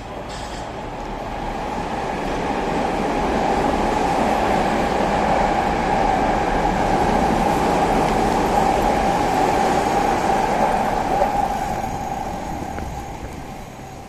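A Tobu Skytree Line train passing on the elevated concrete viaduct. Its running noise swells over the first few seconds, stays loud through the middle, then fades away near the end.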